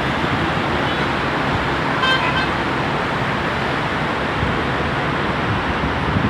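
Steady road traffic noise with a short car horn toot about two seconds in.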